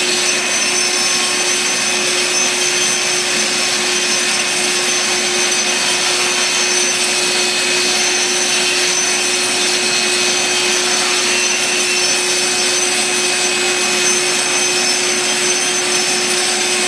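Right-angle grinder with a diamond wheel grinding paint off a concrete wall, its dust shroud drawing through a running vacuum. A steady, even grinding with a constant whine.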